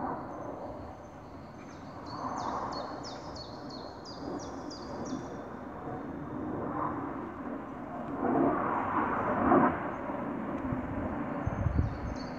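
Low rumbling from the sky, swelling and fading, which the recorder puts down to a passing airplane. Over it, a bird gives a quick run of short falling chirps early on and again near the end.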